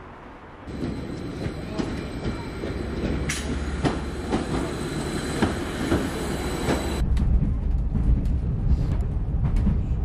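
Passenger train at a station platform: a steady rumble with a thin high whine and scattered clicks. About seven seconds in it changes abruptly to the lower rumble and clicking of the train heard from inside while it travels.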